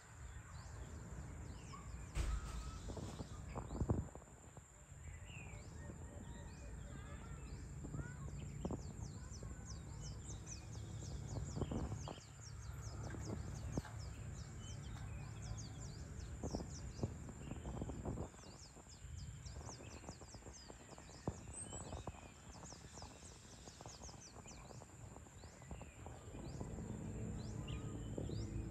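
Evening outdoor ambience: many short, high bird chirps over a low steady hum, with a thin constant high tone and occasional knocks.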